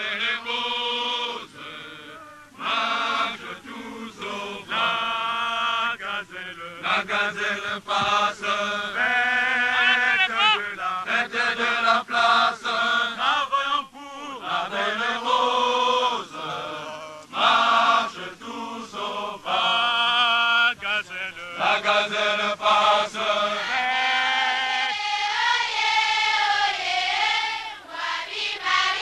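A group of men singing a chant together, in sung phrases separated by short breaks.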